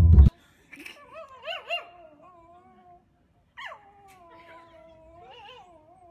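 A small dog whining. First comes a run of short, wavering whimpers. A longer whine begins about three and a half seconds in, starting high, dropping and then holding.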